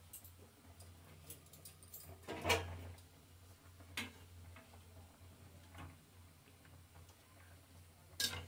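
Quiet kitchen handling: a few scattered light clicks and knocks of utensils, the loudest about two and a half seconds in and another near the end, over a low steady hum.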